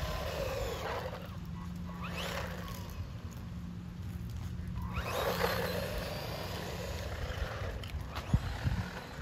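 1:16-scale electric RC truck driving, its motor whining and rising in pitch as it speeds up, twice. A few sharp knocks near the end.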